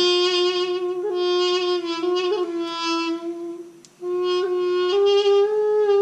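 A small wind instrument played solo: a slow melody of long held notes with quick ornamental turns between them. There is a brief break for breath just before the four-second mark, then the playing resumes and moves up a note about a second later.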